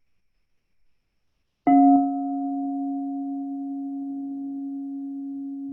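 Crystal singing bowl struck once about a second and a half in, then ringing on with a steady low tone and a fainter higher overtone, slowly fading.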